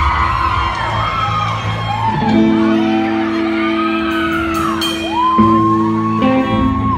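Electric guitar played through an amplifier, holding ringing chords that change about two seconds in and again near the end, in a large hall. High voices whoop and call out over it in rising and falling cries, without words.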